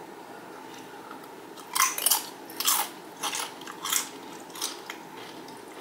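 Crunching of a Xxtra Flamin' Hot Doritos tortilla chip being eaten. A loud first bite comes about two seconds in, followed by several crisp chewing crunches that die away after about three seconds.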